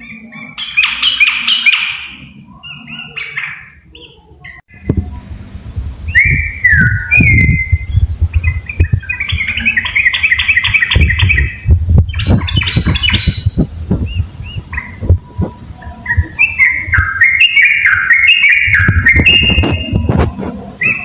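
Yellow-vented bulbuls (trucuk) singing, with repeated bubbly, chattering phrases. From about five seconds in, a low rumble with many short knocks sounds under the song.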